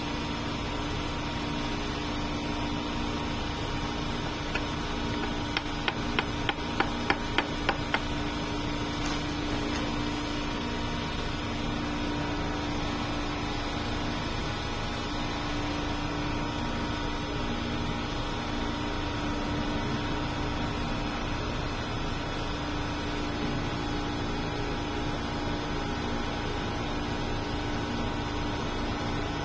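Steady hum of a motor or fan, with a quick run of about eight light, sharp taps about six seconds in.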